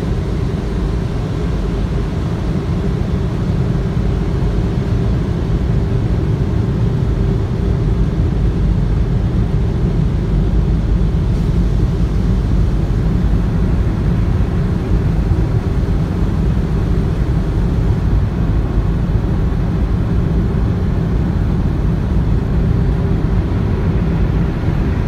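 Steady low rumble of a car heard from inside its cabin, unchanging throughout.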